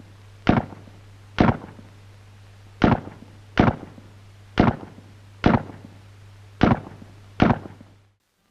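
FN FAL self-loading rifle being fired: eight sharp shots at roughly one a second, slightly uneven, the rapid fire that comes from not having to load each round by hand. The shots stop abruptly near the end.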